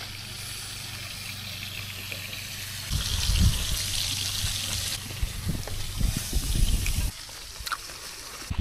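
Small waves washing over a pebble shore, a steady watery hiss. From about three seconds in, irregular low rumbling thuds of wind or handling on the microphone come over it.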